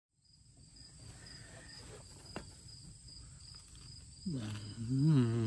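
Crickets chirping steadily, with one sharp click about halfway. Then, in the last second or so, a man lets out a long, low 'mmm' with his mouth full while eating.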